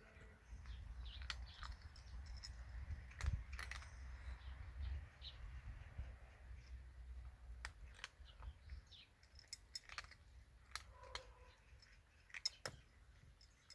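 Faint scattered chirps of small birds with sharp clicks here and there, over a low rumble that fades out about nine seconds in.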